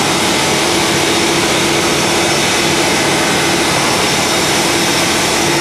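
GISON GPW-7 pneumatic polisher running steadily at speed: its air motor gives a loud, even hiss with a steady hum under it.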